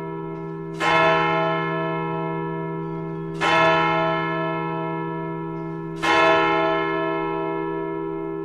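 A bell struck three times, about two and a half seconds apart, each stroke ringing on and slowly fading, over a steady low held tone.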